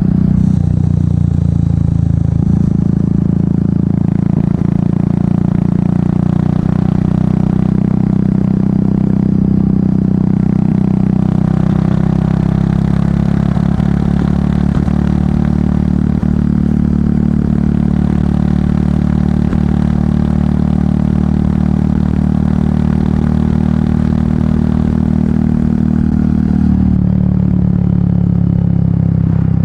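Royal Enfield Meteor 350's single-cylinder engine through an aftermarket exhaust, running steadily under way. The engine note steps up about two seconds in and drops near the end.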